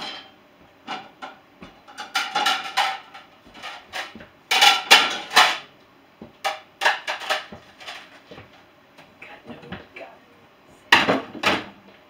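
Dishes and glasses clinking and clattering as a dishwasher's racks are unloaded: irregular clusters of sharp knocks, loudest about halfway through and again near the end.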